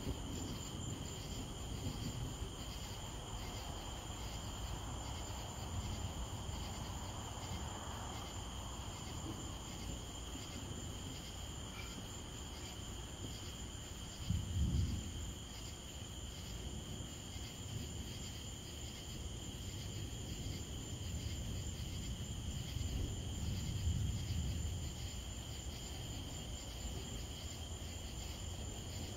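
Night chorus of crickets and other insects: a steady high trill with a pulsing buzz above it. Low rumbles of distant thunder sound under it, a short one about halfway through and a longer, softer one later.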